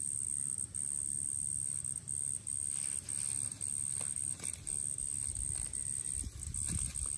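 Insects buzzing: a steady high-pitched buzz that breaks off briefly about twice a second, over a low rumble.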